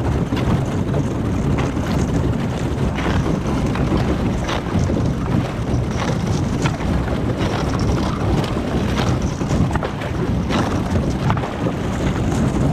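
Thin lake ice crunching and cracking as a canoe breaks a path through it, with scattered sharp cracks over a steady grinding noise and wind on the microphone.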